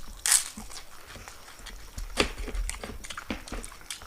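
Crisp fuchka (pani puri) shells crunching as they are bitten and chewed, in irregular crackly snaps. The loudest crunch comes just after the start, with another at about two seconds.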